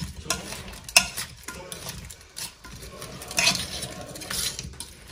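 A white plastic fork stirring shrimp around a square copper-coloured pan, scraping and tapping against the pan irregularly, with one sharp tap about a second in.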